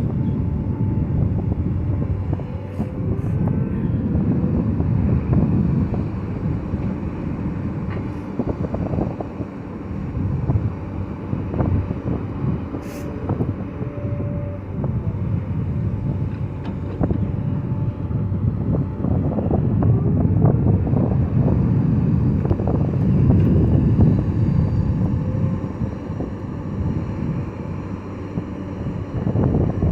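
Diesel engine of heavy earthmoving machinery running under varying load, the rumble swelling and easing every few seconds.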